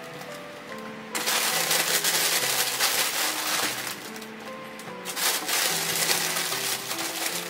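A plastic bag crinkling and rustling in two stretches, starting about a second in and again about five seconds in, as fresh shiitake mushrooms are handled out of it, over background music with held notes.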